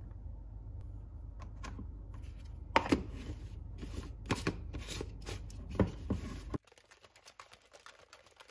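A metal spoon tipping powder into a plastic shaker bottle and the bottle's lid being screwed on: a run of light taps and plastic clicks, loudest about three seconds in, over a low hum that cuts out about two seconds before the end.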